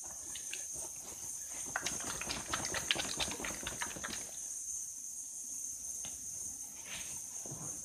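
Close handling noise of work on the part: a quick irregular run of light clicks and knocks for about four seconds, then only a few scattered taps over a faint steady hiss.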